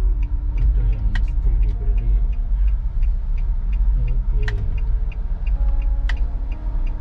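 Low rumble of a car's engine and tyres heard from inside the cabin at slow speed, with the turn-signal relay ticking steadily about three times a second as the car turns. A few sharper clicks or knocks sound at about one, four and a half and six seconds in.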